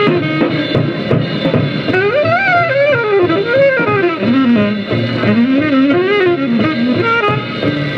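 Live 1947 bebop jazz for trumpet, alto sax, piano, bass and drums, played from a vinyl record: a fast solo line winds up and down over the rhythm section.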